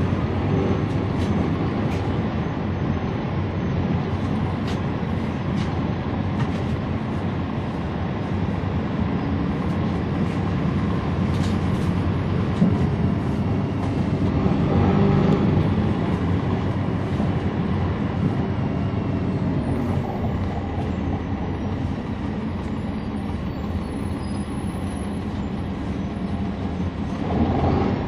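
Cabin sound on board a 2011 NABI 40-SFW transit bus: its Cummins ISL9 diesel engine and ZF Ecolife automatic transmission running, with occasional short clicks. The sound swells for a couple of seconds about halfway through.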